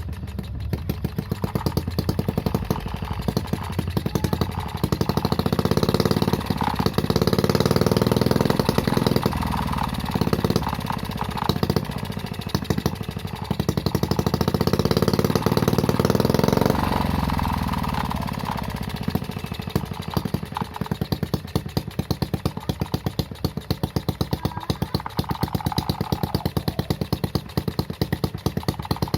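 Homemade mini four-stroke engine running through its new exhaust with a bassy note. It is revved up twice, about six seconds in and again about fourteen seconds in, and settles back to a fast idle each time.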